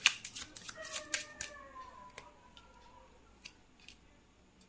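Tarot cards being shuffled and handled: a quick run of sharp clicks and snaps in the first second and a half, then a few scattered taps.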